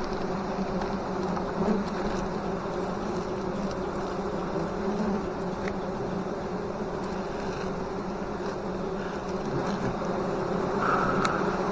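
Many honeybees buzzing together in a steady, continuous drone, as a colony is disturbed during a honey harvest.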